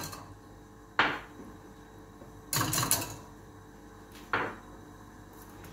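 Kitchenware knocking against a stainless steel pot: two sharp knocks about three seconds apart, with a brief clatter between them.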